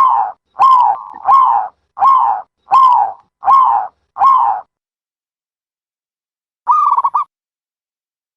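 A dove calling: seven short call notes in quick succession, about two a second, each dipping in pitch. A single trilled call follows about two seconds later.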